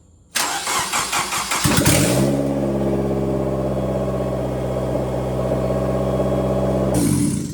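Honda K20A2 2.0-litre inline-four, freshly rebuilt, cranked over by the starter for about a second and a half before it catches and flares up. It then runs at a steady, loud idle with no exhaust manifold fitted, and is shut off near the end.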